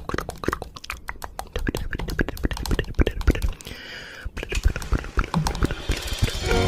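A rapid, irregular run of sharp clicks and pops, with a short hiss a little under four seconds in.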